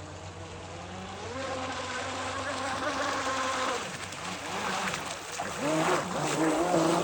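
Radio-controlled speed boat's motor whining, its pitch climbing about a second in, holding, then dropping and wavering up and down as the throttle changes.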